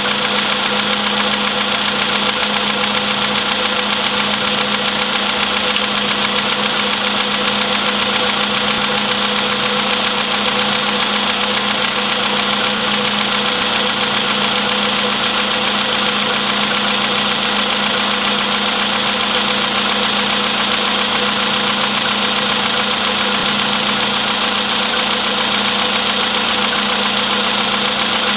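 Engine running steadily with a knock, heard as a fast, even rattle that doesn't change.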